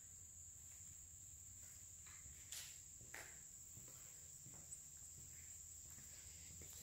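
Near silence, with a faint, steady, high-pitched insect drone from outside and a few soft knocks.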